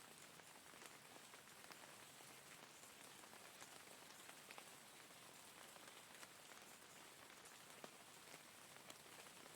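Steady rain falling: a faint, even hiss with scattered single drops ticking sharply now and then.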